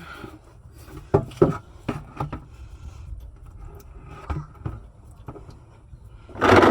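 Scattered metal clicks and knocks of an oil filter wrench and hands working the oil filter loose on a Duramax diesel. Near the end comes one short, loud rush of noise.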